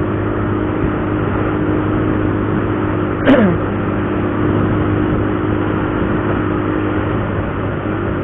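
Motorcycle engine running at a steady cruise, with road and wind noise. About three seconds in, a short sound drops quickly in pitch.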